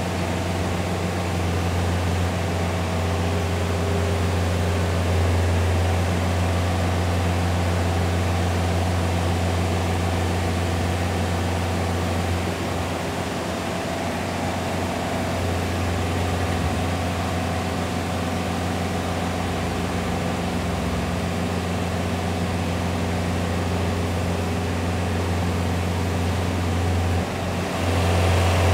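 Steelbro sidelifter lifting a shipping container with its hydraulic crane arms: a steady, deep engine drone with a constant hum, unbroken through the lift. Near the end the sound dips briefly and changes.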